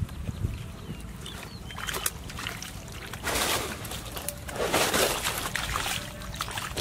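Hands and bare feet squelching and sloshing in shallow muddy water, with small clicks of sticks and debris and two louder swishy splashes a little past the middle.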